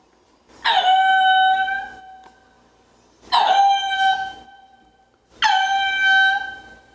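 A farm animal calling three times, evenly spaced. Each cry lasts about a second, dips quickly in pitch at its start and then holds a steady, clear, high note.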